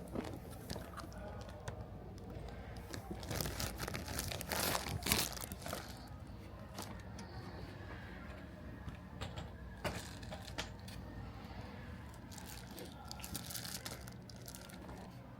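Rustling and crinkling with scattered light clicks and knocks, over a steady low hum.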